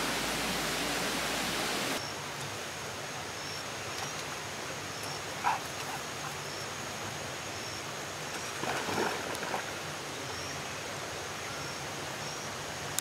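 Water of a spring-fed stream rushing over a small cascade: a steady rush that drops suddenly to a quieter murmur about two seconds in. A faint, short, high chirp repeats about once a second over the water.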